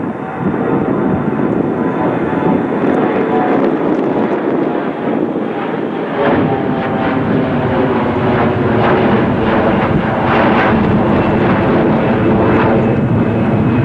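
Jet airliner engines running at high power on a departing jet, a steady loud roar with whining tones through it, growing a little louder in the second half.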